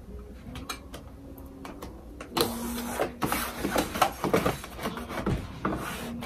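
A plastic Cricut cutting mat and glitter iron-on vinyl being handled: hands smooth the sheet and push the mat under the Cricut Maker's rollers. It starts with a few small clicks, and from a couple of seconds in there is louder rustling and scraping with short knocks.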